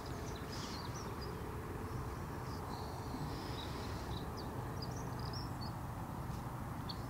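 Rural outdoor ambience: a steady low rumble with a scattering of faint, short bird chirps.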